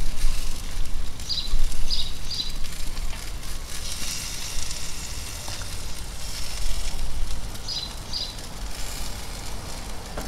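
Glazed pork ribs sizzling on a hot gas grill as they are basted, under an uneven low rumble. A bird gives short high chirps several times, in small groups.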